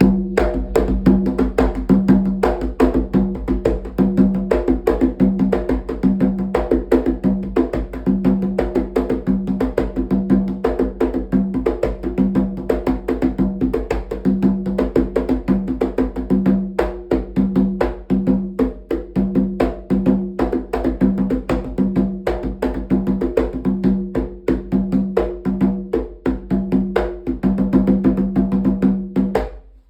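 Rum atabaque, a tall goatskin-headed drum with a 26.5 cm head, played in the congo rhythm: a fast, continuous stream of strokes with a ringing drum tone. The playing stops at the very end.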